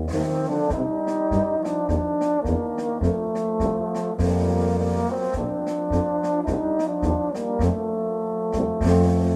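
Brass band playing a Bohemian-style polka, with brass melody and chords over low bass notes and a steady, evenly spaced percussion beat.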